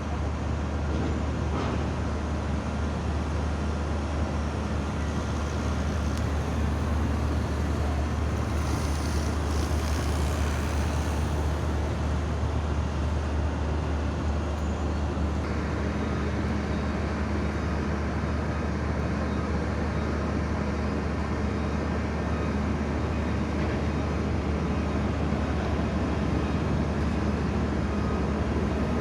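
Diesel excavator engines running steadily at work, a deep constant drone. A hiss rises for a few seconds about a third of the way in, and a further steady hum joins about halfway.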